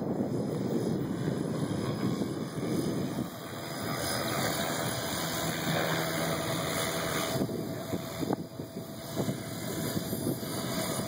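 Gaui X5 electric RC helicopter in flight, its motor and rotors making a faint, steady hum under wind buffeting the phone's microphone.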